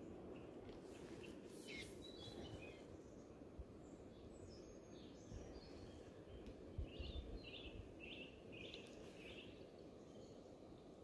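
Faint, steady rush of river water with a bird chirping over it: a few calls about two seconds in, then a run of about five short chirps from about seven to nine seconds in. A few soft low bumps come near the middle.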